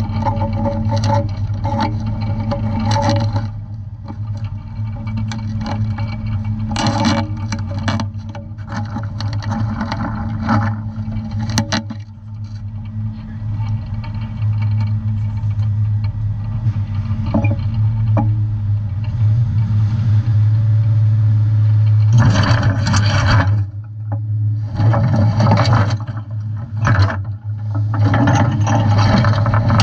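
Steady low drone of a scallop fishing boat's engine, with irregular clanking, rattling and scraping from the steel dredge and its chain bag, heaviest over the last eight seconds as the dredge is swung out over the water to be set.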